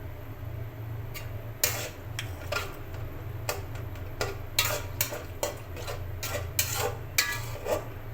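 A cooking utensil stirring in a pot, about a dozen irregular scrapes and clinks against the metal, over a steady low hum.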